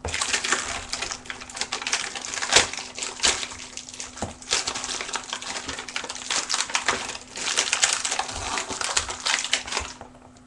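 Plastic packaging crinkling and crackling as skateboard wheels are pulled out of it by hand, with a few sharper knocks among it. It stops suddenly near the end.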